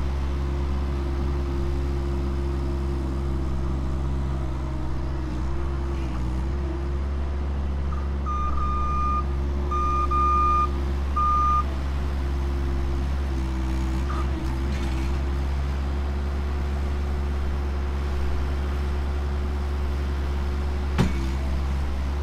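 Bobcat skid-steer loader's engine running steadily, its pitch sagging briefly a couple of times as it works. About eight seconds in, its backup alarm sounds three beeps, the last one shorter. A single sharp knock comes near the end.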